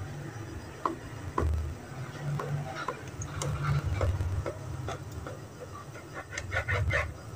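Small kitchen knife cutting the crusts off sandwich bread on a plastic chopping board: scattered soft crunches and clicks, then a quick run of about six short sawing strokes near the end.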